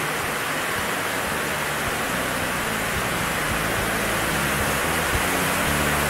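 Rain falling on a corrugated tin shed roof: a steady hiss, with a few short low knocks near the end.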